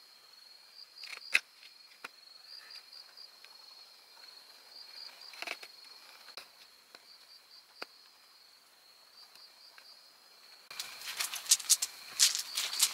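Crickets chirping in a steady high pulsing trill, with a few scattered light taps. About eleven seconds in, a dog's paws start crunching on gravel close by, louder than the crickets.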